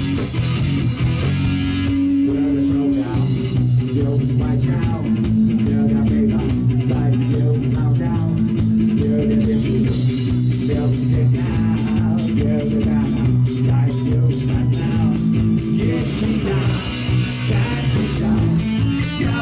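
Live rock band playing an instrumental passage between sung lines: guitar and bass over a steady drum-kit beat.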